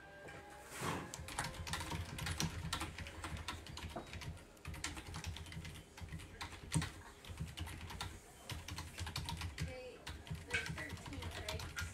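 Typing on a computer keyboard: a rapid, irregular run of key clicks, with a few brief pauses.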